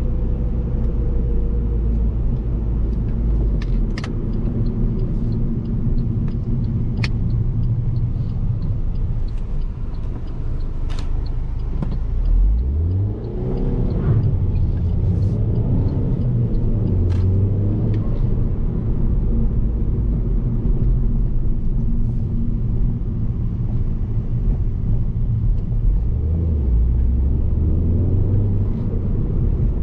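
Alfa Romeo Giulietta 1.75 TBi turbocharged four-cylinder heard from inside the cabin while driving, a steady engine hum over tyre and road noise. About twelve seconds in the engine revs up, rising in pitch, and it rises again near the end as the car accelerates through the manual gears. A few sharp clicks are heard in the first half.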